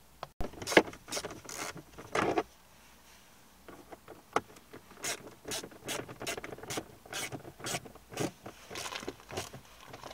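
Plastic clatter and scraping as a Vauxhall Corsa glovebox is pushed into the dashboard, then a run of short clicks and rustles, about two a second, as its retaining screws are handled and fitted with a screwdriver.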